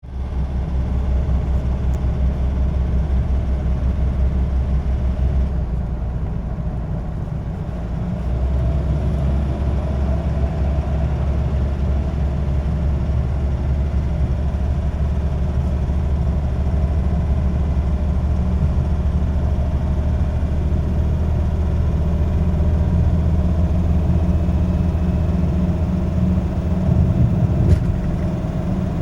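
Nissan Navara D40 engine running steadily, its level dipping briefly about six seconds in. The owner suspects an injector noise in it.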